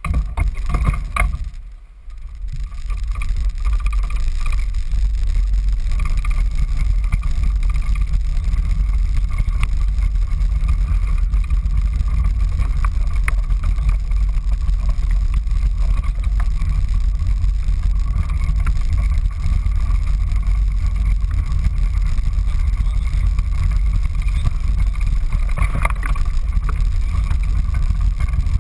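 IAME X30 125cc two-stroke kart engine running steadily, heard from the kart itself.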